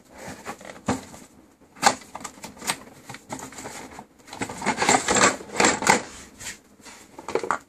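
A cardboard box being opened by hand and yellow plastic brush-cutter guard parts pulled out: irregular scrapes, cardboard flap rustles and plastic clatter, busiest about five to six seconds in.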